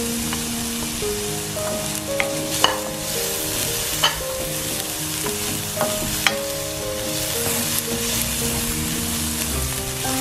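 Chopped garlic and shallots sizzling in a hot Saladmaster stainless-steel skillet, stirred with a wooden spatula. The spatula clicks against the pan several times between about two and six and a half seconds in.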